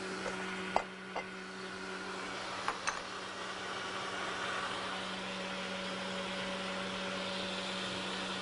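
Electric countertop blender running steadily, its motor giving an even hum as it mixes a thin liquid cake batter. A few light clicks sound about a second in and again around three seconds in.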